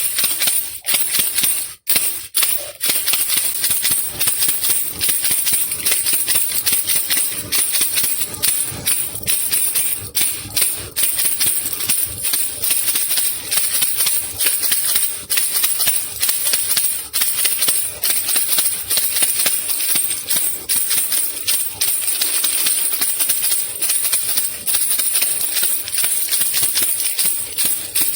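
Baby rattle being shaken continuously: a fast, dense, hissy rattling, with a brief break about two seconds in.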